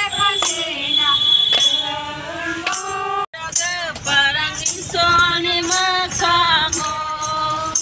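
A group of women singing a song together, with a tambourine jingling in rhythm. The sound breaks off for an instant about three seconds in.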